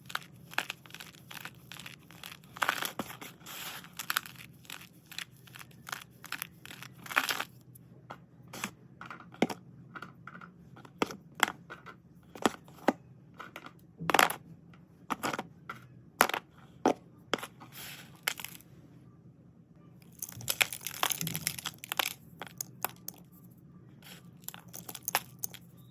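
Hard white slate pencils and slate pieces being handled and dry-cleaned: irregular sharp clicks and crunchy scraping, with a denser run of scraping about three quarters of the way through.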